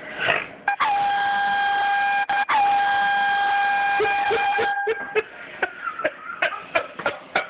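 An air horn blown in two long blasts, about a second and a half and then about two seconds, with a brief break between them; each blast dips in pitch as it starts. A few short, sharp clicks follow.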